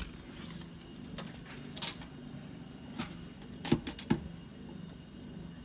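Scattered metallic clicks and light rattles from handling a metal toolbox drawer and the tools in it. A quick cluster of sharper clicks comes about three and a half to four seconds in.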